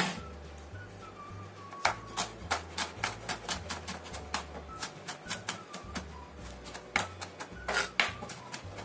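Chef's knife mincing garlic on a bamboo cutting board: a run of uneven knocks of the blade on the wood, several a second, starting about two seconds in, after a single sharp knock at the start. Soft background music plays underneath.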